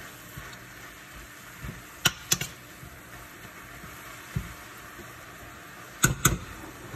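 Mallow greens with tomato and garlic sizzling softly in a sauté pan while a spoon stirs them, clinking sharply against the pan twice about two seconds in and twice more near the end.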